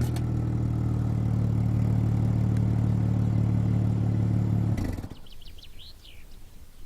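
BMW M2's turbocharged straight-six idling steadily through an aftermarket Fi exhaust; the engine sound cuts off suddenly about five seconds in. A few short, high chirps like birds follow.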